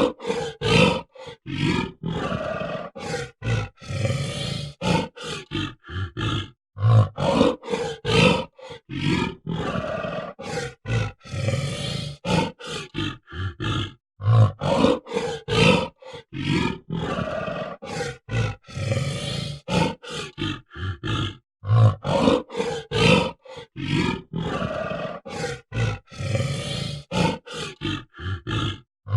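Gorilla sound effect: short, loud animal calls one after another with brief gaps, a clip of about seven seconds played over and over in a loop.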